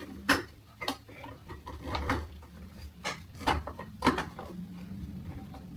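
Parts of a clothes drying rack, including its steel pieces, knocking and clacking together as they are handled and fitted during assembly: about six sharp, uneven knocks.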